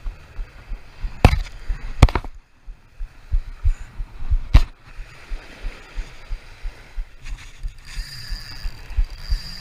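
Irregular low thumps of wind and handling on a body-worn action camera, with three sharp knocks in the first half, over faint breaking surf.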